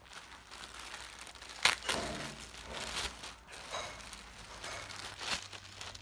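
Clear plastic packaging bag crinkling and rustling in irregular bursts as a garment is handled and pulled out of it. There is one sharp, louder crackle about a second and a half in.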